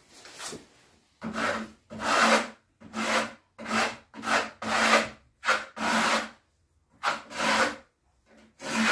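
Steel plastering trowel scraping thin marmorino plaster across a board in a quick series of about ten strokes, starting about a second in, with a short pause near the seven-second mark.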